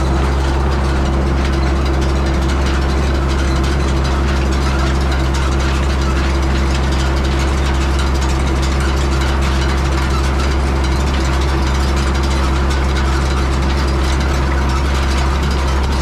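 Farm tractor engine running loudly at a steady, unchanging speed while pulling a hay rake.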